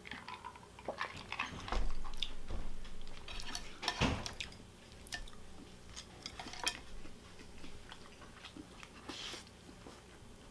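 Close-up eating sounds: chopsticks and a spoon clicking and knocking against plates, bowls and a stew pot, with chewing. A few louder knocks stand out about two and four seconds in.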